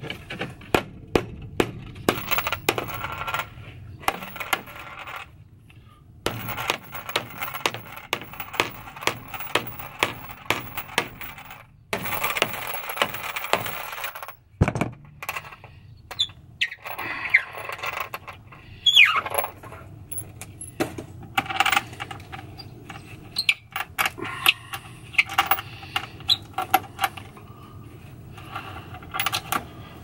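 Hammer tapping on metal bolts set through a plywood board: many sharp metallic knocks in quick runs, with short pauses between them.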